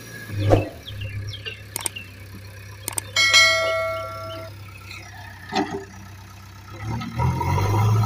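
JCB backhoe loader's diesel engine running steadily, with a subscribe-button sound effect laid over it: clicks about two and three seconds in, then a bell ding that rings for about a second. A thump sounds about half a second in.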